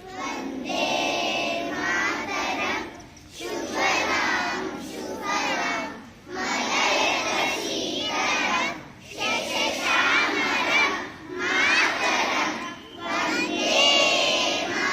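A large group of schoolchildren voicing together in unison, in short phrases of about two seconds with brief pauses between them.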